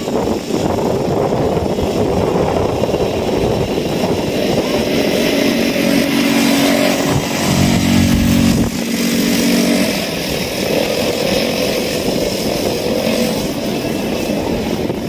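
ATV engine running while riding, over a steady rush of noise. The engine note grows louder and clearer for a few seconds in the middle, then settles back.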